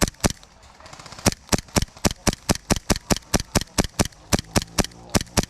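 Airsoft guns firing a steady string of sharp shots, about four a second, with a pause of about a second near the start.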